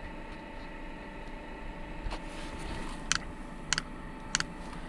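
Chinese diesel heater starting up, freshly reassembled and running without its air inlet hose: a steady hum with a thin steady tone from its blower. From about three seconds in, sharp ticks about every two-thirds of a second, the beat of its fuel dosing pump.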